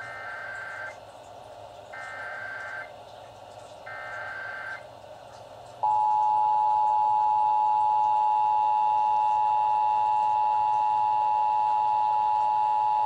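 Emergency Alert System test alert: three short bursts of the digital SAME header, each about a second long and a second apart. About six seconds in, the loud two-tone attention signal (853 and 960 Hz) starts and holds steady.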